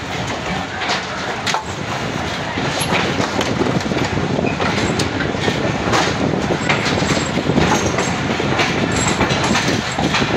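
Passenger train pulling out of a station, heard from on board: steady rumble of the coaches with wheels clacking irregularly over rail joints, growing louder as it gathers speed.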